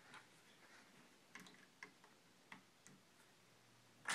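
Faint plastic clicks and taps from Lego minifigures and bricks being handled and set into place on a small Lego gazebo, a few irregular light clicks with a sharper click at the very end.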